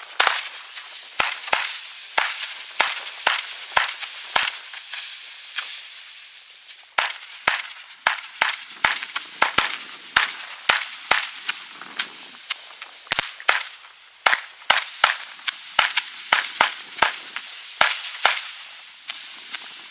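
Consumer fireworks, a firework battery firing a rapid run of shots: sharp bangs about two to three a second over a steady crackling hiss of bursting stars.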